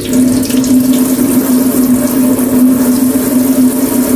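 Water running from a tap, with a steady low mechanical hum beneath it.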